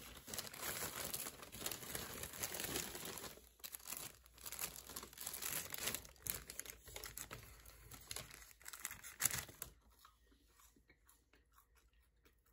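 White paper wrapping of a fish-and-chips takeaway being unfolded, rustling, crinkling and tearing, stopping about ten seconds in.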